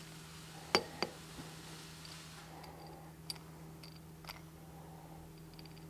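A few light metal clinks and taps as a steel puller is set onto a tractor's final-drive drop box case, the sharpest about a second in and fainter ones later.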